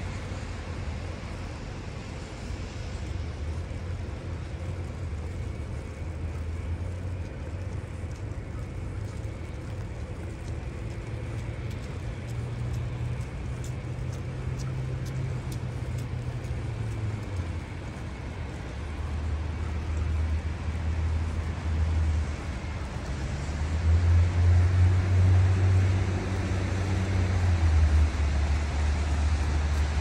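City road traffic: a steady low rumble with a hiss over it, swelling louder in the last few seconds.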